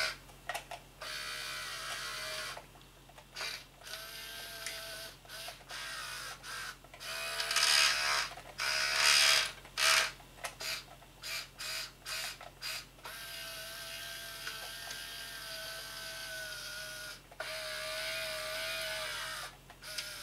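Small electric gear motors of a 1/14-scale Hobby Engine RC wheel loader whining through their plastic gearboxes in repeated stop-start runs as the machine is worked, with a louder, rougher stretch of gear noise about eight seconds in.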